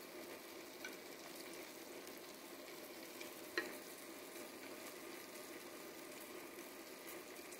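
Flour-coated beef chunks sizzling in butter and olive oil in a pot as they are seared, a steady faint hiss, with a single sharp click about three and a half seconds in.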